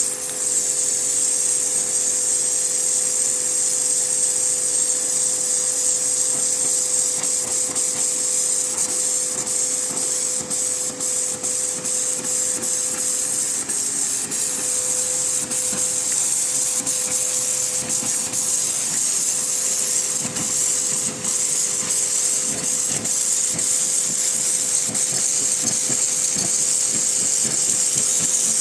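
Pressure washer running, its water jet spraying with a loud, steady hiss over a constant motor hum. Scattered sharp clicks and crackles come through from about a third of the way in.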